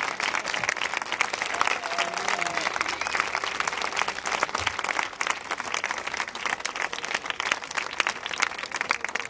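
A crowd applauding: dense, fast clapping with a few voices calling out, easing slightly toward the end.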